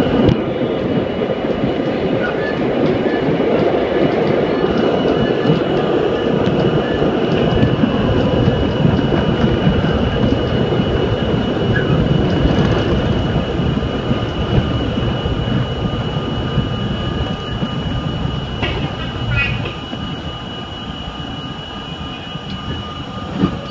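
An R32 subway train, heard from inside the car, runs along the rails with a loud, steady rumble of wheels and running gear. It slows as it pulls into a station, and the rumble eases over the last several seconds until the train stops near the end.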